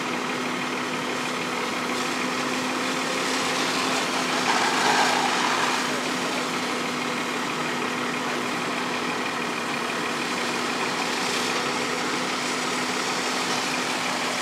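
Fire engine running steadily, driving its pump to feed the charged hose lines, a constant hum under an even mechanical wash. A louder rush of noise rises over it for a second or so about five seconds in.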